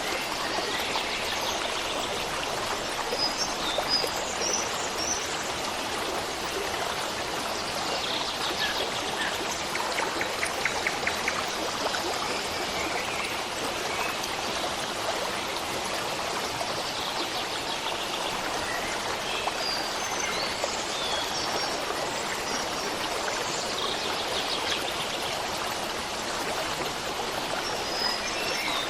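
Running stream water flowing steadily, with small birds chirping now and then over it.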